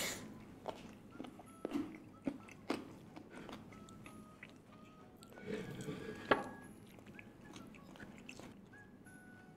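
Close-up chewing and biting of crispy fried chicken with a crushed Super Ring snack coating, with scattered sharp crunches, a few louder ones about two seconds in and again near the middle.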